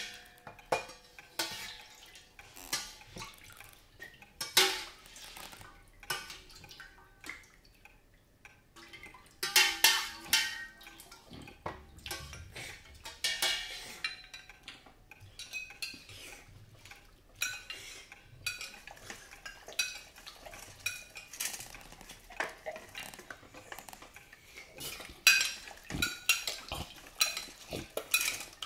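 Spoons clinking against bowls as people eat soup: irregular short clinks and knocks, bunched more densely now and then.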